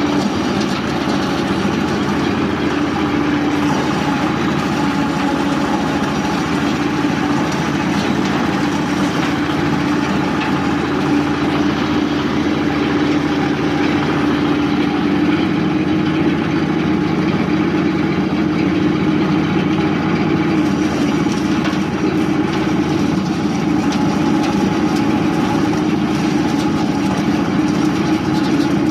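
Areca nut splitting and peeling machine running steadily, its motor giving a constant loud drone with an even hum.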